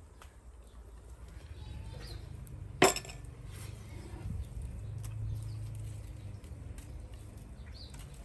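Dishes clinking: one sharp, loud clink a little under three seconds in, with a few faint small clicks around it over a low background rumble.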